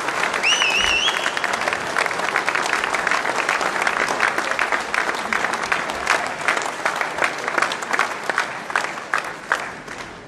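Large audience in a hall applauding, dense clapping that thins out near the end. A brief whistle with a wavering pitch sounds over it about half a second in.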